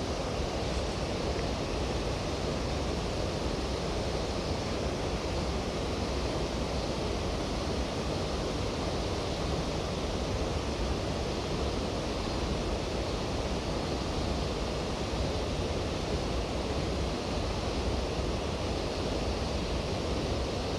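Steady rushing of a mountain stream, an even noise of flowing water.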